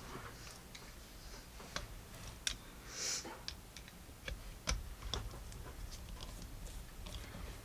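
Small irregular clicks and ticks of a screwdriver working a grip-frame screw out of a single-action .22 revolver, with a few sharper clicks and a short hiss about three seconds in.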